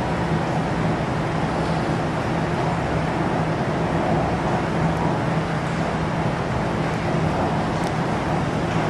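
Steady wash of rain and traffic on wet streets, with a constant low hum underneath.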